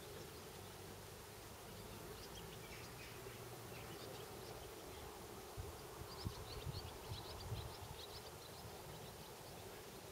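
Insects buzzing over a soft steady outdoor hiss, with scattered faint high chirps; a few low thumps come about halfway through.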